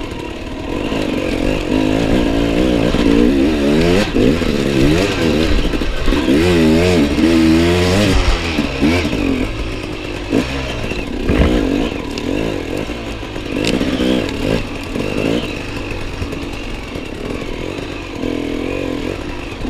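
Enduro motorcycle engine revving up and down as the bike is ridden off-road, with a few sharp knocks along the way.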